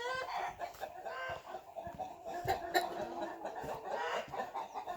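Several chickens clucking, with overlapping short calls throughout.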